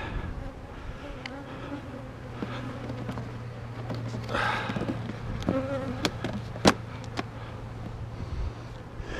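Honeybees buzzing steadily around opened nuc boxes and hives, with a few sharp knocks in the second half.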